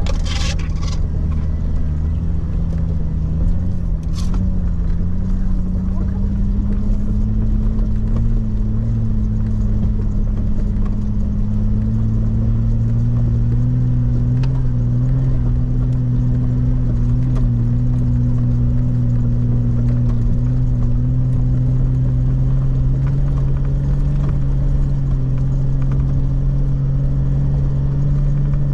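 Jeep Wrangler LJ's engine running steadily while driving, its pitch rising slowly as engine speed climbs. Two sharp clicks or knocks come near the start.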